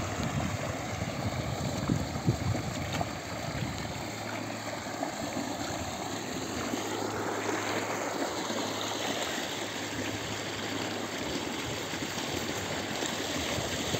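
Irrigation water pouring from a plastic pipe and running along a muddy earth channel, a steady rushing and gurgling. A low steady hum sounds under it for several seconds in the middle.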